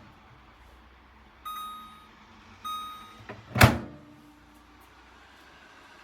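Two short electronic beeps from the LG MS23NECBW microwave oven's control panel, about a second apart, followed by a small click and then a loud thunk.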